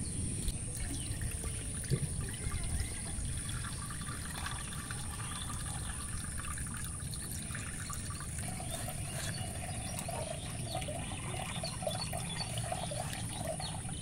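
Rice being swished by hand in water in a clay pot, then the cloudy wash water poured off in a trickle into another pot.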